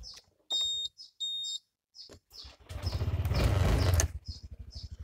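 Two short electronic beeps from a keyless-entry motor scooter, then its engine starts with a loud surge about three seconds in and settles into a steady idle.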